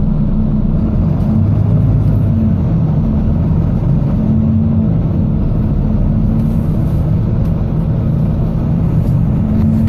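Volvo B9TL double-decker bus engine running under way, heard from on board: a steady low drone whose tone shifts as the bus pulls and eases. The bus is described as clapped out, with a ticking sound.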